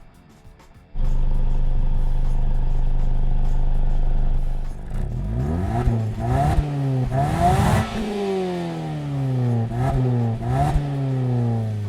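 2016 Mazda CX-5's SKYACTIV-G 2.0-litre four-cylinder engine and exhaust: the engine comes in suddenly about a second in and runs steadily. It is then revved about four times in quick blips, each rising in pitch and falling back toward idle.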